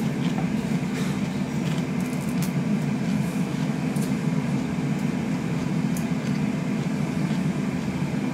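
A steady low mechanical hum, like a kitchen fan, runs on at an even level. Over it come a few faint crisp snaps as cauliflower florets are broken off by hand.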